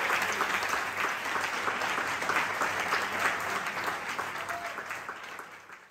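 Audience applauding, a dense patter of many hands clapping that gradually fades away near the end.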